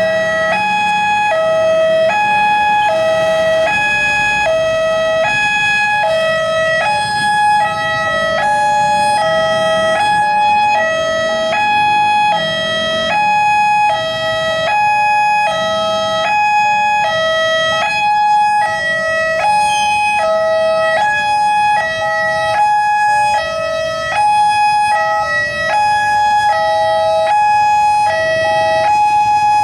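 Railroad level-crossing warning alarm sounding: an electronic two-tone signal steadily alternating high and low notes, about one high-low pair a second, with road traffic underneath. It signals that a train is approaching and the barriers are closing.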